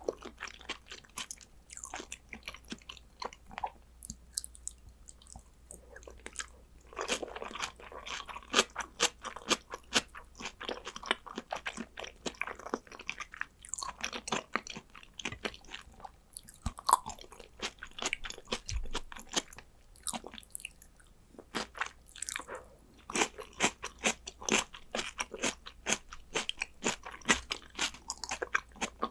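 Close-miked eating sounds: wet chewing, lip smacks and crunching, a quick run of short clicks that is busiest from about seven seconds in and again near the end.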